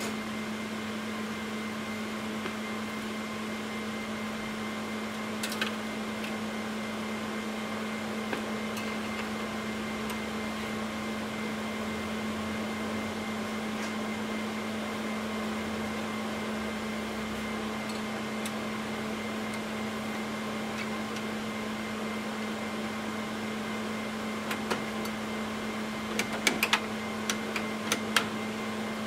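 Steady machine hum, like a fan running, with a low droning tone and a fainter higher whine. In the last few seconds come several sharp clicks and taps of metal as a bracket at the top of the server rack is handled.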